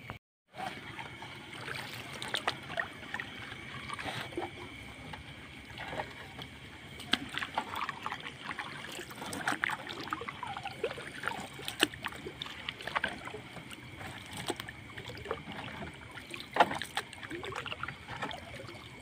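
Wet gill net full of sardines being hauled hand over hand over a boat's gunwale, water splashing and dripping off the mesh into the boat and the sea, with many small sharp splashes and knocks.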